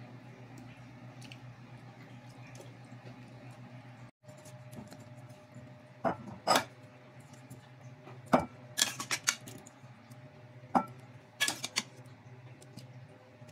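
Dishes and a metal pot clinking and knocking as boiled corn cobs are lifted out of the pot and set on a ceramic plate. There are a dozen or so sharp knocks, some with a brief ring, from about six seconds in, over a steady low hum.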